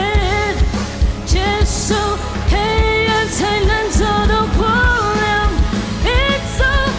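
A woman singing a pop song live into a microphone, in Mandarin, over a full band backing with a steady drum beat and electric guitar.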